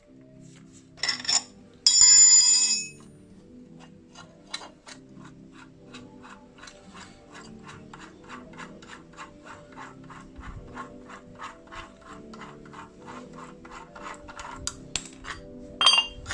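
Background music with a quick run of metallic clicks, about three a second, typical of a ratchet wrench turning the threaded puller of a press-free bushing removal tool. A loud ringing metal clang comes about two seconds in, and a few sharper knocks near the end.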